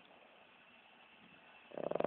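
A sleeping pet snoring: a quiet pause between breaths, then a fluttering snore starts near the end.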